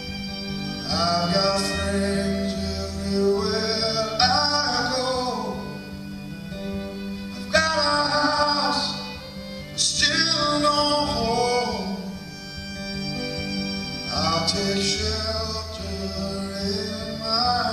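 Male singer performing a song live with acoustic guitar and string accompaniment, in three sung phrases over sustained low notes.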